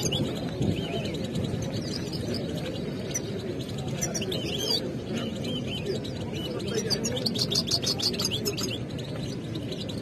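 Caged finches singing and chirping: quick high chirps and twittering trills, with a fast run of trilled notes about seven to eight seconds in, over the low murmur of a busy market crowd.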